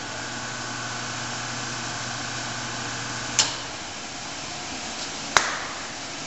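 Monarch 10EE lathe's built-in coolant pump running with a steady hum, switched off with a click about three and a half seconds in. A second sharp click, a switch or lever, follows about two seconds later.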